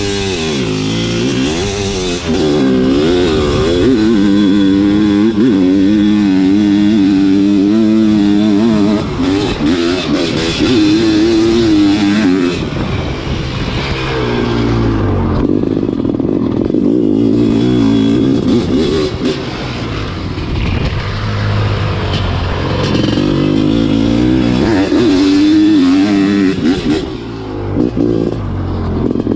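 A sidecarcross outfit's motocross engine heard from an onboard camera, running loud and revving up and down as it rides over a dirt track.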